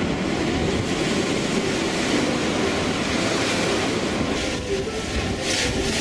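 Heavy storm surf: large waves breaking against a sea wall and surging over it, a loud, continuous rush of crashing water.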